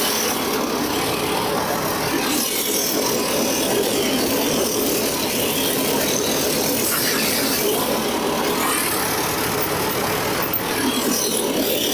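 Wood chipper shredder's 15 hp gasoline engine running steadily.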